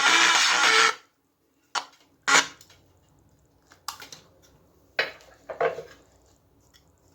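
Music playback cuts off about a second in, followed by five short clattering knocks of objects being handled.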